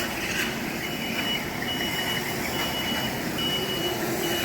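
Backup alarm beeping: a single high tone, repeating about once a second, each beep lasting most of a second, over steady background noise.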